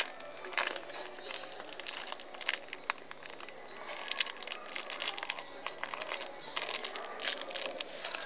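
Irregular crackling and clicking of a small plastic toy and its packaging being handled close to the microphone.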